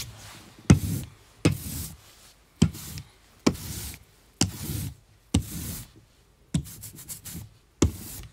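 A series of sharp percussive hits, roughly one a second, each dying away quickly, with a quick flurry of hits near the end.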